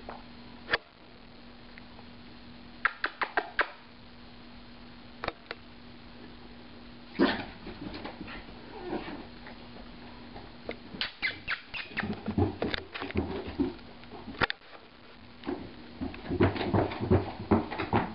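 Corgi puppy's paws and claws on a carpeted staircase: scattered clicks and scuffs at first, then from about halfway through a busy run of soft thumps and scrabbling as it climbs the stairs, heaviest near the end.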